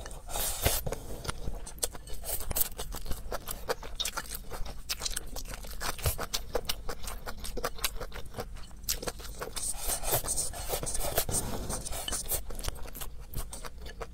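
Close-up eating sounds: a mouthful of soybean sprouts slurped off chopsticks near the start, then wet chewing and crunching of the sprouts, with many small clicks and scrapes of wooden chopsticks against the ceramic bowl.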